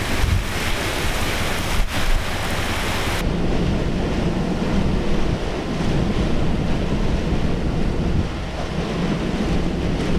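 Strong storm wind gusting over the microphone, a loud, steady rush of noise heavy in the low end, possibly mixed with rain. The sound shifts abruptly about three seconds in, as from a cut to another shot of the same storm.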